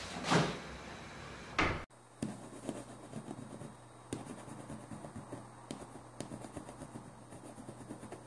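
A pen scratching on a melamine-faced chipboard panel as it is traced around the base of a glass: many small, irregular scraping strokes. Two louder rubbing sounds of hands and glass on the board come in the first two seconds, then the sound cuts down abruptly.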